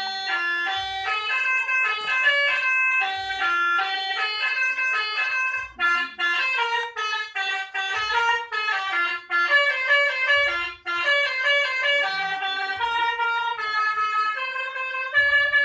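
Bus 'telolet' horn set with four horn trumpets playing a fast melody of short, stepped, brassy notes, with brief breaks between phrases.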